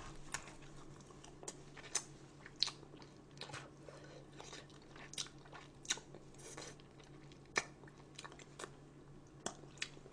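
Close-miked eating: a person biting and chewing food, with soft crunches and wet mouth clicks at irregular intervals over a faint steady hum.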